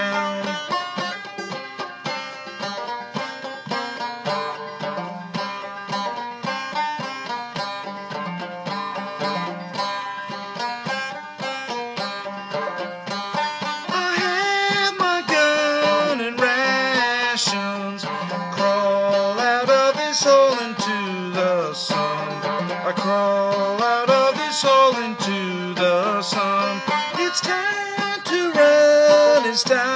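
Banjo played clawhammer style, a steady instrumental passage of a song, growing louder about halfway through.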